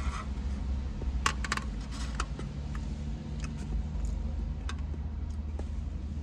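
A person chewing a soft dessert, with a scatter of small sharp clicks from the mouth and from a plastic fork and clear plastic clamshell container being handled, over a steady low rumble.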